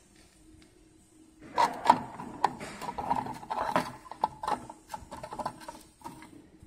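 Metal clattering and scraping from a tin can used as a lead-melting pot being handled and worked with a spoon: a busy run of knocks and scrapes starts about one and a half seconds in and dies away after about four seconds.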